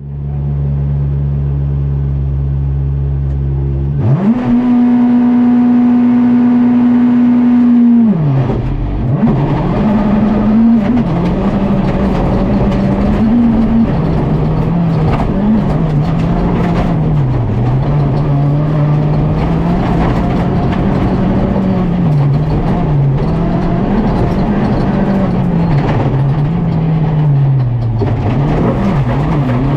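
Volkswagen Polo GTI R5 rally car's 1.6-litre turbocharged four-cylinder engine: it idles, is held at high revs for about four seconds as for a launch, then pulls away hard, the pitch climbing and dropping over and over as it runs up through the gears and lifts for corners.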